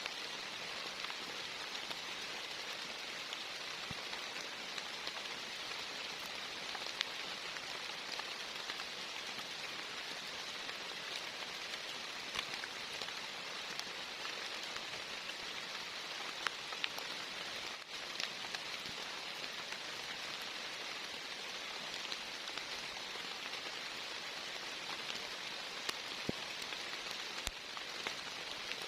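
Heavy rain falling steadily, with scattered single drops striking close by as sharp ticks.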